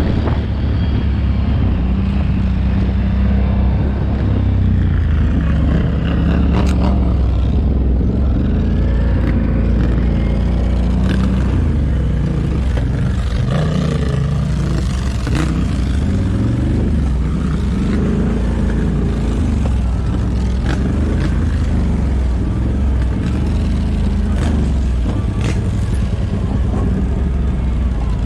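ATV engine running under load, its pitch rising and falling as the throttle changes, with occasional knocks and rattles over the ride.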